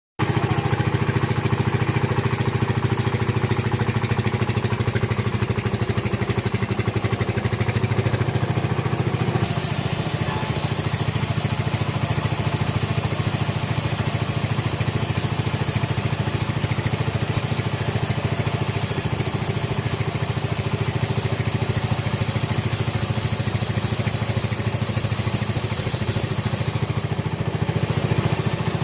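Engine-driven sawmill running steadily with a fast, even drone. About nine seconds in a bright hiss joins and carries on, the sound of the saw cutting into the coconut log.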